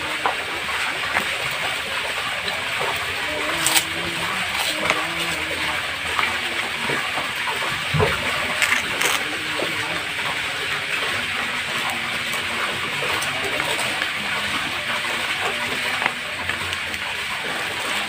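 Plastic spoon mashing and scraping soft fish-bait dough in a plastic tray, with a few short clicks of the spoon against the tray. A steady hiss runs underneath.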